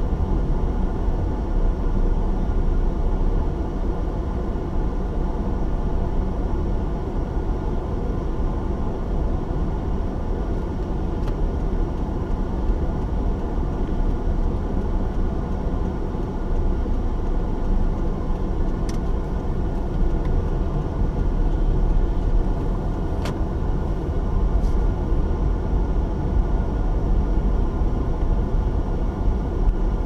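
Steady low rumble of a car's engine and tyres on a paved road, heard from inside the cabin while driving, with a few faint clicks.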